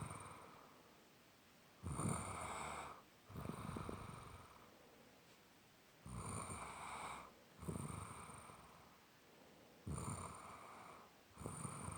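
A sleeping person snoring: a rough, rattling snore on every breath, repeating about every four seconds, each breath in two parts, a longer snore and then a shorter one just after.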